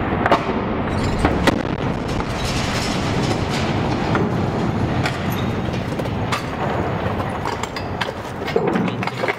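Large tunnel bomb explosion heard from a distance: a long, steady rumble with many sharp cracks scattered through it.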